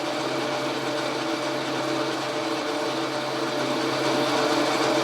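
Logan metal lathe running steadily, a mechanical gear-train sound with a steady hum of several tones. It gets slightly louder about four seconds in.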